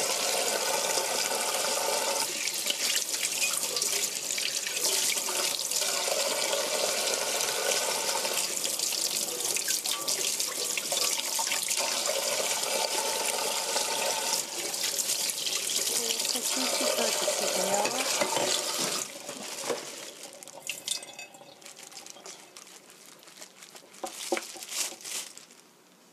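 Kitchen tap running into a stainless steel sink, the water splashing over raw chicken pieces as they are rinsed by hand. The water stops about three-quarters of the way through, leaving a few soft knocks and clicks.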